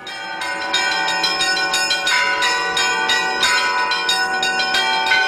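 Several Orthodox monastery bells rung by hand, a monk pulling the rope of each. Quick strikes come in a rhythmic peal, and their ringing tones overlap.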